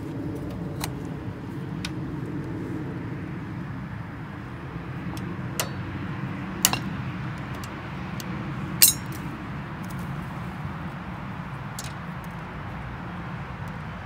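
Pliers and small metal parts clicking and clinking at a lawn tractor's front wheel hub: scattered sharp metallic clicks, the loudest two about six and a half and nine seconds in, over a steady low hum.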